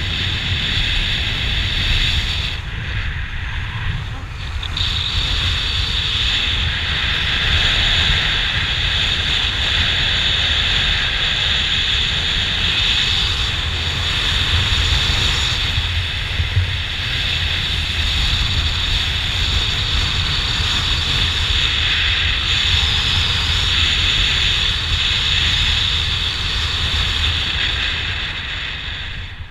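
Wind rushing over a helmet-mounted camera's microphone during a parachute descent under an open canopy: a steady deep buffeting with a thin high whistle. It eases off near the end and stops as the canopy comes down to land.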